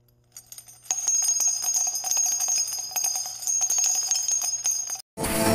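Jingling, bell-like intro sound effect: many quick strikes over ringing high tones over a faint low hum, starting about a second in and cutting off suddenly near the end. Live band music with tambourine begins right after.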